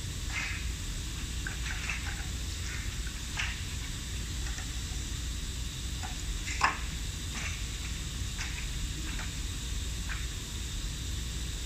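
Scattered light clicks and knocks of an aluminium profile being handled at the clamps of a milling machine, one sharper knock about two-thirds of the way through, over a steady low hum.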